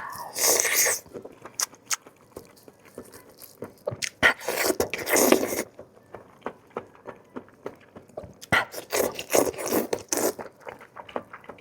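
Biting into and chewing a stuffed meat bamboo-shoot roll with a shrimp-paste filling, in three louder bouts of noisy chewing: at the start, about four seconds in, and about nine seconds in. Small clicks come in between.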